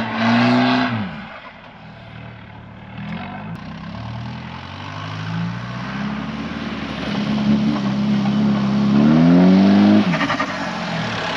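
2000 Holden TF Rodeo's 2.8-litre turbo-diesel through a twin 3-inch exhaust, working hard, then backing off about a second in. The engine note then climbs in pitch and gets louder as the ute comes closer, drops off sharply near the end, and settles to a lower, steady running.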